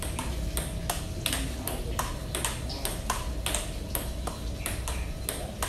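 Table tennis rally: a celluloid ball clicking off the bats and bouncing on the table in a steady forehand exchange, about two to three sharp clicks a second.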